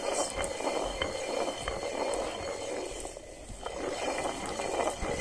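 A hand-turned stone quern: the heavy upper millstone rotating on the lower stone and grinding rice into flour, making a steady rough grinding rumble.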